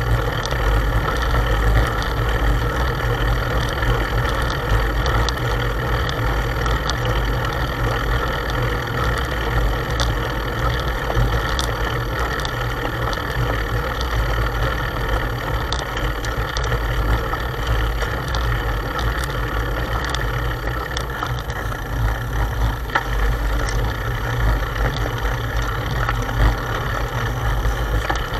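Steady riding noise picked up by a bicycle's handlebar-mounted camera: low wind and road rumble on the microphone, with the traffic queued alongside and scattered small clicks.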